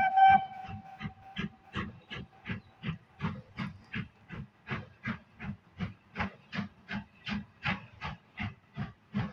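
Steam locomotive hauling a train: its steam whistle ends just after the start, then the exhaust beats from its chimney go on evenly, about three a second.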